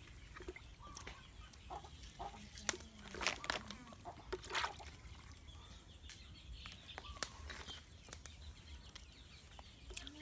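Cleaver chopping a water snake on a round wooden chopping block: a series of irregular sharp knocks, loudest about three seconds in, with chickens clucking in the background.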